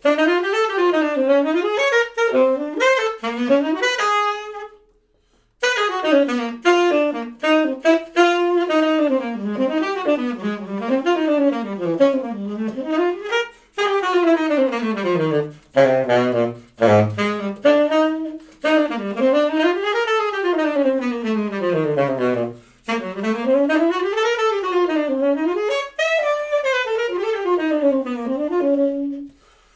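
Unaccompanied tenor saxophone improvising a blues: fast runs of notes sweeping up and down, with short breaks between phrases, the longest a few seconds in.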